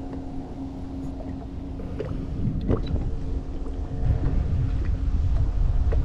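Wind rumbling on the microphone over a steady low hum, with a few light clicks and knocks a couple of seconds in; the wind rumble grows louder over the last two seconds.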